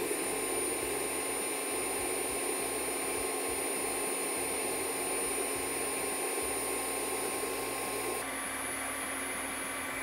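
Dreame H12 Pro wet/dry vacuum running its self-cleaning cycle in its docking station at maximum (ultra) suction. A steady high motor whine sits over the rush of suction as the roller brush is flushed and the dirty water is drawn into the dirty-water tank. About eight seconds in, the pitch steps up slightly.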